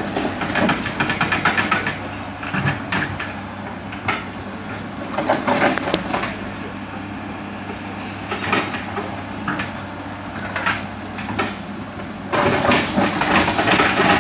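Tracked excavator travelling slowly, its steel crawler tracks clanking and rattling in uneven bursts over a steady diesel engine hum. The clanking is heaviest near the start and again near the end.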